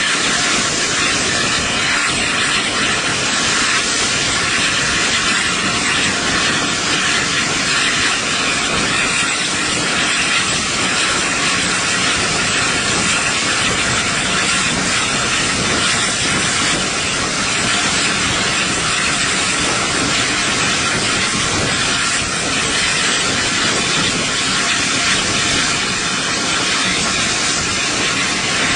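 Train hauled by the Peppercorn A1 Pacific steam locomotive 60163 Tornado, running at speed as heard from an open carriage window behind it. A loud, steady rushing hiss of steam and air with no clear beat.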